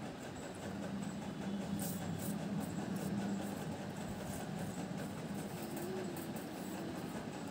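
A steady low hum over background hiss, with no speech.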